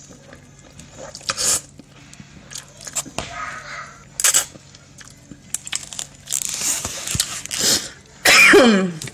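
Noodles slurped up off a fork in several noisy sucks, the longest in the second half. Near the end comes the loudest sound, a short vocal sound sliding down in pitch.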